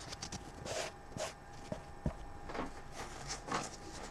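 Soft handling noises at a work bench: a string of brief rustles and scrapes with a few light taps and clicks, one dull knock about two seconds in.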